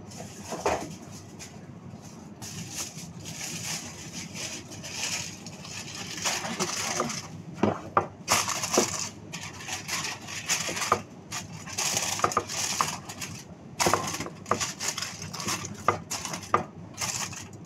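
Aluminium foil crinkling and crackling as it is crumpled and pressed down over a baking tray, in irregular bursts with sharp crackles.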